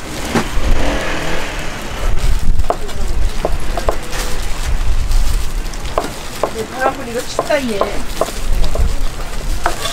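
A large kitchen knife chopping sundae (Korean blood sausage) and pork liver on a plastic cutting board: irregular sharp knocks of the blade striking the board, over a steady market din.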